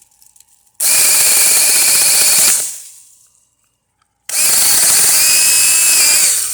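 A 28-volt cordless 4-inch mini chainsaw running in two bursts of about two seconds each as it cuts branches, its electric motor giving a steady whine over the rattle of the chain. The first burst winds down as the motor coasts to a stop; the second starts and stops sharply.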